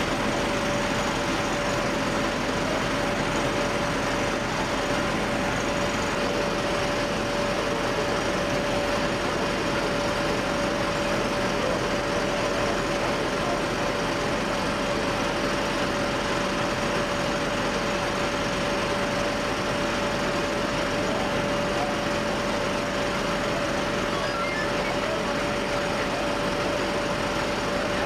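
A motor running steadily, with a constant whine over an even rushing noise that does not change.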